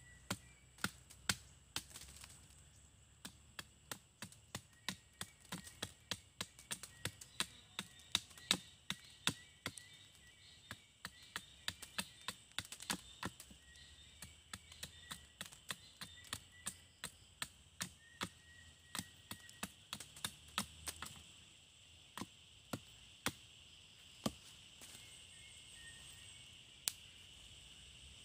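Machete chopping into a wooden pole: sharp blade strikes at about two a second, thinning to a few scattered strikes near the end.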